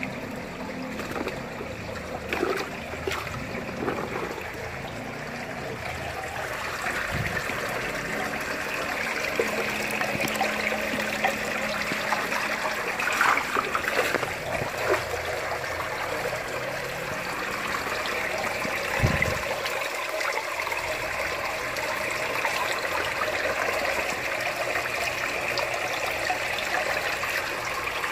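Water trickling and splashing in an aquaponics fish tank as a dip net sweeps through it and red tilapia thrash at the surface, with a few sharper splashes around the middle.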